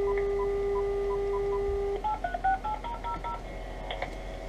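Cordless phone line: a steady dial tone with faint short beeps over it, cut off about two seconds in by a quick run of about ten touch-tone (DTMF) dialing tones as a number is dialed. A click follows near the end.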